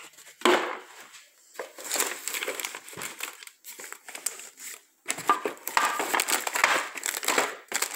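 Crinkling and rustling of things being rummaged through by hand, in irregular bursts that grow busier about five seconds in.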